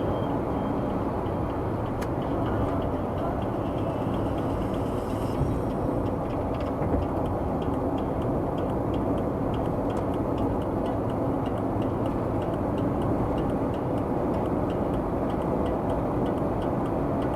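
A car driving along at a steady pace: constant road and engine noise. A faint, rapid, regular ticking runs through much of it.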